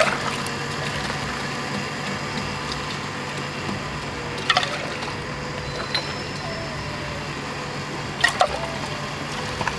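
Lemon soda being mixed and poured at a street stall: liquid running into a glass, with sharp clinks at the start, about halfway and twice near the end.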